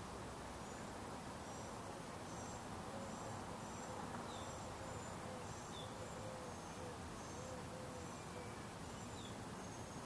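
Supreme Fans JCSB-52 ceiling fan running with a steady rushing hum, while faint, short, high chirps repeat throughout.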